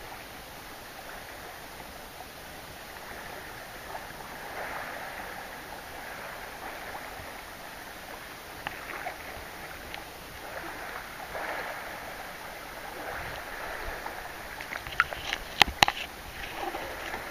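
Kayak paddle strokes dipping and swishing through the water in a repeated rhythm, with a few sharp knocks near the end.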